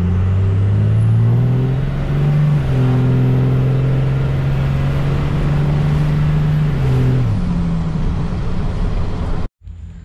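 2nd-gen Dodge Ram's 24-valve Cummins turbo-diesel under hard acceleration, heard from inside the cab. The engine note climbs, steps down once as the transmission shifts, and pulls steadily with a high whine rising alongside. It then falls away as the throttle is let off. The run works air out of freshly plumbed fuel lines.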